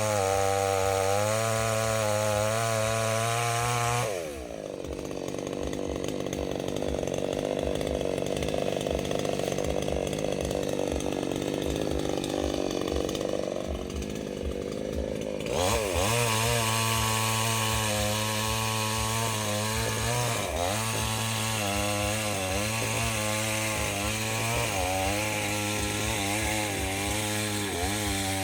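Two-stroke chainsaw running at high revs. About four seconds in, its note drops into a rougher buzz for about eleven seconds, typical of the chain cutting into wood. Then it revs free again, the pitch wavering up and down.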